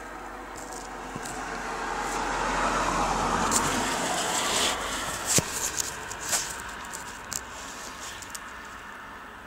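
Peugeot/Citroën XUD diesel engine with a thrown connecting rod running; its noise swells and then eases off about halfway through, with a few sharp knocks in the second half.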